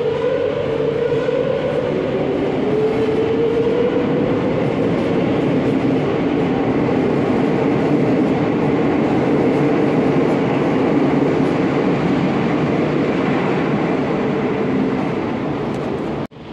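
Madrid Metro 8400-series electric train pulling out of the station: a rising electric whine as it accelerates, then steady wheel and rail noise as the cars run past, easing off as the last car enters the tunnel. The sound cuts off abruptly near the end.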